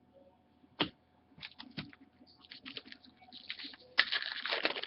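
Trading cards and their packaging being handled: a sharp click, scattered taps and ticks, then a dense rustle for about the last second.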